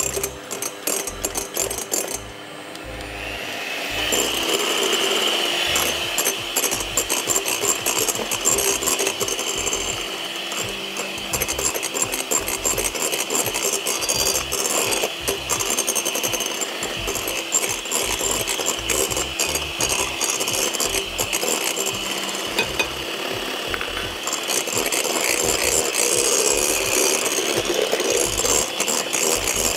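Electric beater whipping egg whites as sugar is added little by little. The motor whine rises as it comes up to speed, about three seconds in, then runs steadily throughout.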